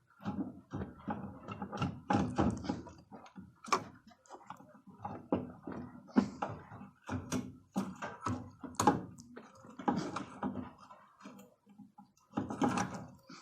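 Irregular clicks, knocks and scraping of a plastic fuel pump and filter assembly being worked down through the fuel tank opening and twisted into place.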